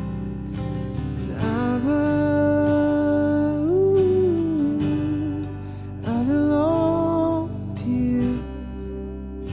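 Worship music: an acoustic guitar strumming steadily under a slow melody. The melody holds one long note from about a second and a half in, then a shorter one around six seconds in.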